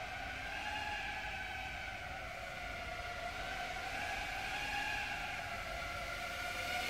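FPV quadcopter's brushless motors whining, the pitch drifting gently up and down as the throttle changes.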